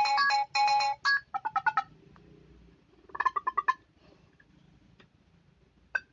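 Samsung Galaxy Pocket stock phone tones played one after another: a ringtone of quick repeated electronic notes ends about a second in, then two short flurries of notification notes, a soft click and a brief blip near the end.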